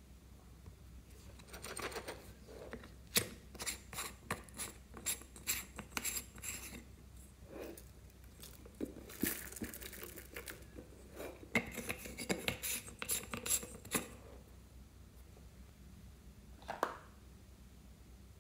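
Clear slime topped with beads and glitter crackling and clicking as a soft plastic toy is pressed down into it and pulled back up. Quick runs of sharp clicks with a short lull midway, and one last click near the end.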